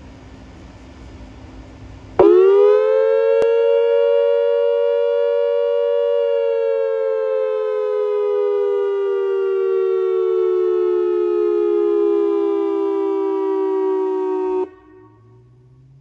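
Whelen WPS-2740 electronic outdoor warning siren sounding a short steady alert in its dual tone. Two close pitches swoop up about two seconds in, hold, sag slowly lower, then cut off suddenly near the end. Faint steady background noise comes before it.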